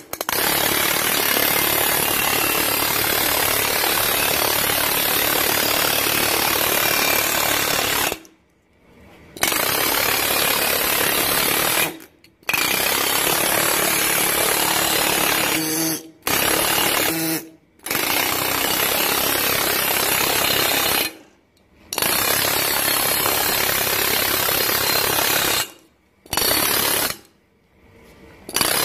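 Pneumatic multi-strike air hammer rapidly hammering sheet metal to lay over a stretched edge. It runs in long stretches and stops briefly about seven times as the trigger is released and pressed again.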